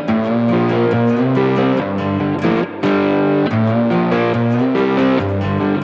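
Background music: electric guitar chords played with distortion over a bass line and a steady beat.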